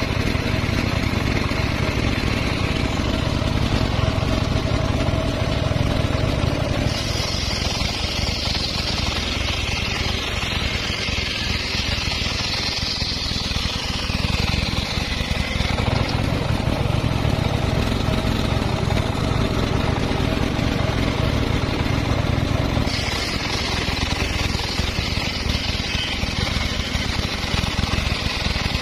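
Homemade circular sawmill ripping a log lengthwise: a steady machine drone, with the higher, noisier sound of the blade cutting wood coming in about seven seconds in, fading around sixteen seconds, and returning around twenty-three seconds.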